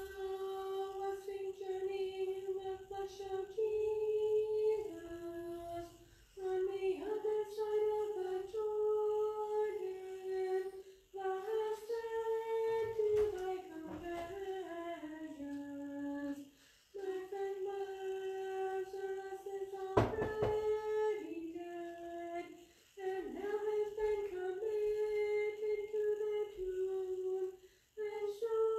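A single woman's voice chanting an Orthodox Vespers hymn, held mostly on one reciting note with small steps up and down, in phrases of a few seconds each. A sharp click comes about two-thirds of the way through.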